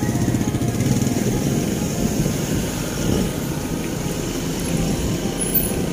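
Street traffic dominated by a small motorcycle engine running close by, a steady, fast-pulsing engine sound.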